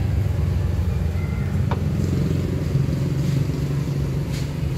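Suzuki Multicab's F6A three-cylinder engine idling steadily with an even, low rumble.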